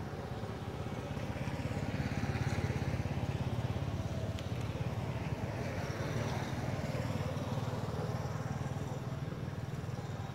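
An engine running steadily, growing louder about two seconds in and holding there.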